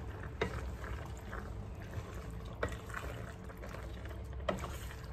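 A wooden spoon stirring thick creamy penne pasta with chicken in a stainless steel pot, giving soft wet stirring sounds and three light knocks of the spoon against the pot.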